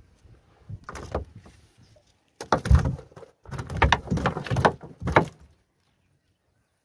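Knocks, thuds and rattles against a small boat's hull as a gill net is handled and fish are worked out of it. Soft rustling about a second in, then two loud spells of rapid knocking, about two and a half seconds in and again from three and a half to five and a half seconds.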